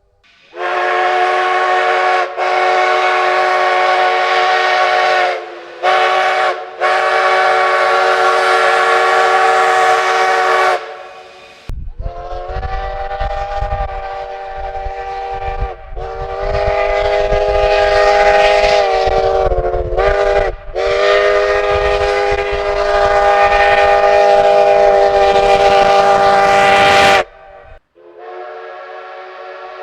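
Multi-chime train whistle sounding a chord of several tones in long blasts: one of about ten seconds with a few brief breaks, then another run of about fifteen seconds over a low rumble, the pitch sagging briefly at each break. A softer blast comes in near the end.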